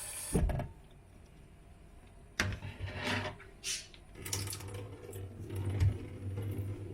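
A thump, then a small electric motor starts humming steadily, with swishing and knocking handling sounds over it.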